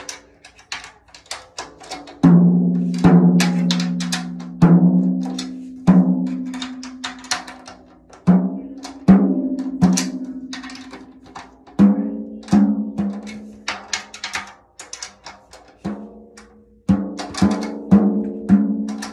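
Drum-kit drums, mainly toms, struck one at a time at an uneven pace, each hit ringing at a clear pitch and fading over a second or two, with lighter taps in between. A lower-pitched drum sounds first, and a higher-pitched one takes over about halfway through.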